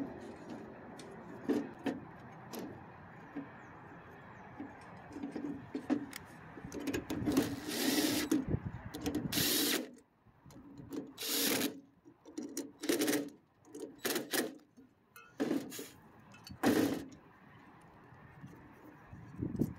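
Cordless drill/driver running in a series of short bursts, driving the mounting screws of a replacement ECM evaporator fan motor into its fan guard, with handling knocks between bursts.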